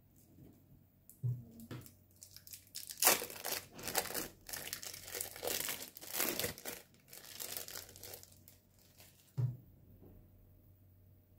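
Thin plastic film crinkling and tearing in irregular bursts as it is peeled off slices of sandwich cheese, with a light thump about a second in and another near the end.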